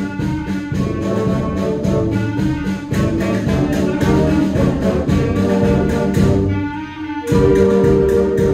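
Middle school concert band playing a piece, with brass, trumpets and trombones, and clarinets sounding together over regular sharp beats. About seven seconds in the music dips for a moment, then the band comes back in on a loud held chord.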